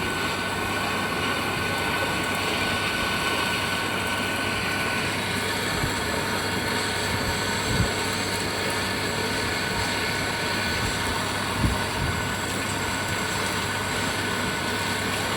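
Water cooler's newly installed refrigeration compressor running steadily with a low mains hum and a hiss, with a couple of brief knocks about eight and twelve seconds in.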